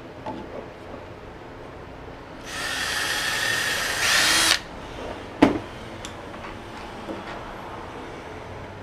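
Electric drill running for about two seconds, boring or driving a screw into a thick PVC bushing to fix an oarlock socket. It gets louder in its last half second, then stops abruptly, and a single sharp knock follows.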